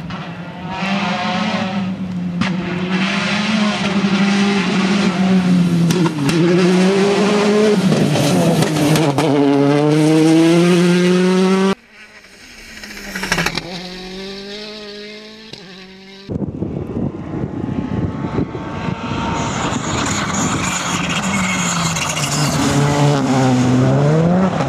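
Rally car engines revving hard on a stage: the pitch climbs and then drops at each gear change, again and again, as cars approach and accelerate away. The sound cuts abruptly between clips twice, about 12 and 16 seconds in.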